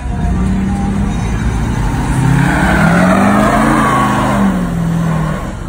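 Pickup truck doing a burnout: the engine revs hard while the rear tyres spin on the pavement. The engine pitch climbs and the tyre noise swells to its loudest about three to four seconds in, then eases off.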